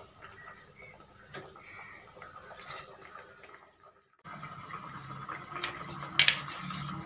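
Potato curry bubbling at a simmer in a pan, with a spatula stirring it. About four seconds in the sound cuts off and comes back louder, with one sharp click about six seconds in.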